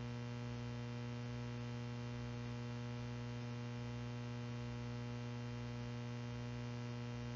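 Steady electrical mains hum in the recording, a low buzz with a stack of even overtones that does not change.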